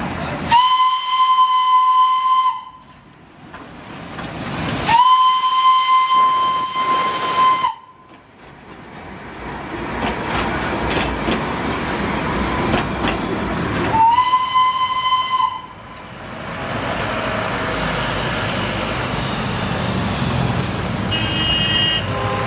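Darjeeling Himalayan Railway steam locomotive's whistle blowing three times in one steady high tone. The first blast lasts about two seconds, the second about three, and the third, a shorter one, comes about two-thirds of the way through. Between and after the blasts there is a steady hiss of steam and the running noise of the passing train.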